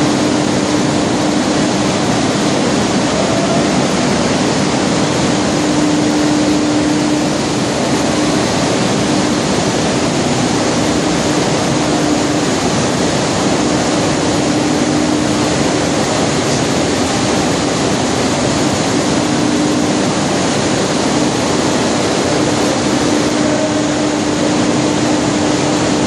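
The machinery of a running sesame cleaning plant: a loud, steady noise of cleaners and separators at work, with a steady hum that fades in and out.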